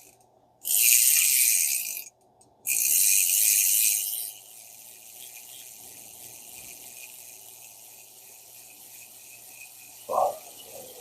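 Daiwa 1600C spinning reel's handle being cranked by hand, its gears turning: two loud high-pitched spells of cranking, then quieter steady turning, with a short knock near the end. The reel turns with a rough spot, which the owner suspects comes from the bushings turning inside their housings.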